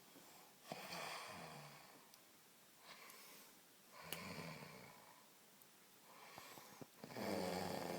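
A person snoring in deep sleep: three rasping snores, roughly three seconds apart, the last the loudest.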